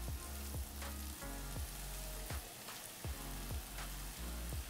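Shredded king oyster mushrooms sizzling and frying as they go into hot oil in a cast iron pan. Background music with sustained bass notes and a steady beat plays underneath.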